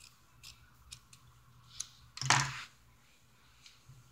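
Scissors snipping felt in a few small, sparse clicks, with one louder brief thump about two seconds in as the felt is handled.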